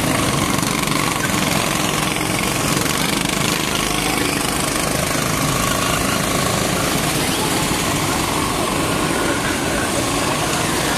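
Several 270cc go-kart engines running together as the karts lap the track, a steady, loud engine din with no break.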